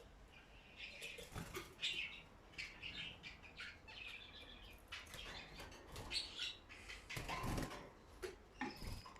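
Small pet birds chirping in short repeated calls, with wings flapping, loudest as a flurry of wingbeats near the end.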